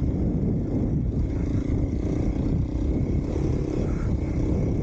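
Kawasaki KLX 250's single-cylinder four-stroke engine running steadily, a low, even rumble with no revving or breaks.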